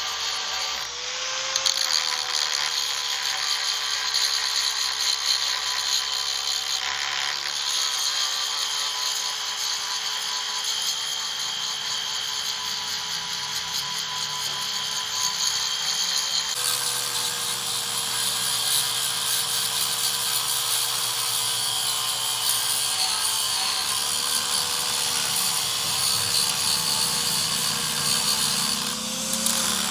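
An electric power tool running steadily on metal, its motor holding an even whine over a hiss of cutting or grinding, with an abrupt change about two-thirds of the way through.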